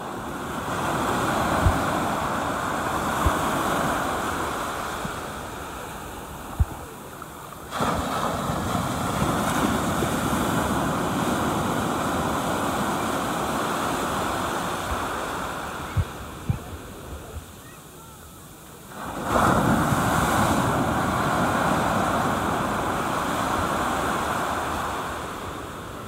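Atlantic surf breaking on a sandy beach, with the rush of foam washing up the sand. It comes in three surges, the second and third crashing in suddenly, and there are a few brief low thumps on the microphone.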